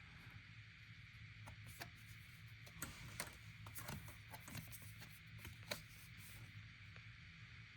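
Faint rubbing and light clicks of Pokémon trading cards being handled and slid over one another, with a few soft ticks spread through.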